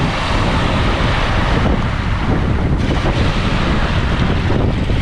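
Wind buffeting the microphone over the steady wash of small waves on a pebble shore.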